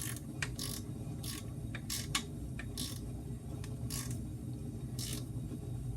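Ratchet wrench being worked in short strokes, clicking and rasping on each swing, over a steady low hum.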